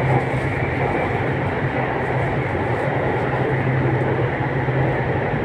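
Bangkok MRT subway train running through the tunnel, heard from inside the passenger car: a steady rumble of wheels and running gear with a constant low hum.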